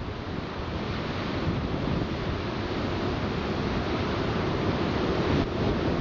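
Gale-force wind buffeting the microphone over the rush of a heavy, breaking storm sea, a steady loud roar of noise that swells slightly.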